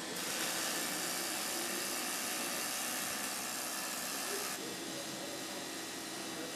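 Robotic welding arc on a motorcycle fuel tank, hissing steadily and cutting off suddenly about four and a half seconds in, over the steady hum of factory machinery.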